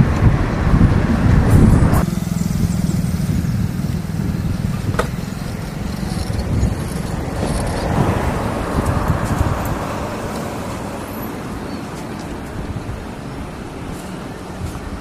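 Motor vehicle running with steady road noise and a low engine hum, with wind buffeting the microphone for the first two seconds until an abrupt change. The noise swells again about eight seconds in, then slowly fades.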